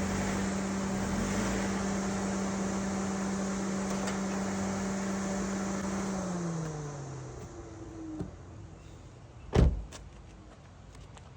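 A car's steady running hum that winds down in pitch and fades about six seconds in, as it is switched off. About a second and a half later, one loud thump, like a car door shutting.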